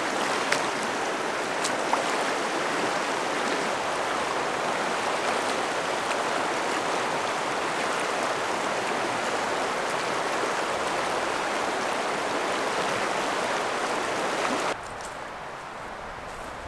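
Fast, shallow mountain river rushing steadily over a rocky bed. It cuts off abruptly near the end, giving way to a much quieter background.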